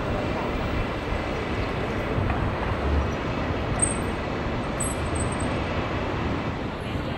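Steady road traffic noise of a busy city street, a low rumble of passing vehicles, with a couple of faint, brief high chirps about four and five seconds in.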